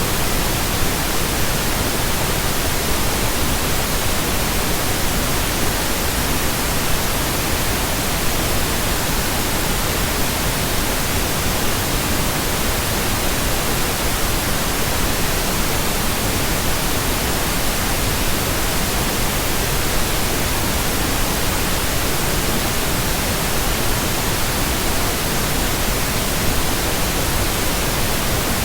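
Steady pink noise: an even, unchanging hiss spread across the whole range, with no tones or breaks.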